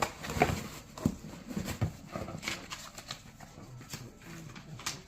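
Package being handled and opened by hand: irregular knocks and taps with some rustling, busiest in the first couple of seconds and sparser after.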